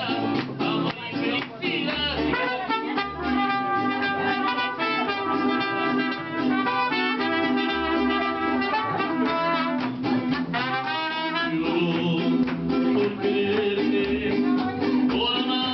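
Live mariachi-style band music, with a trumpet playing the melody over guitar.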